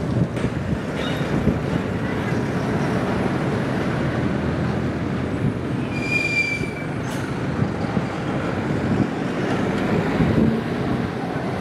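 Wind rumbling on the microphone over a steady wash of water noise, with a short high tone about six seconds in.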